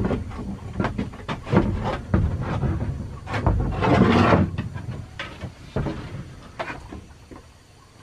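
Knocks, creaks and rustling from someone handling gear and climbing out of a wooden plank hide, with a louder scuffling rush about halfway through.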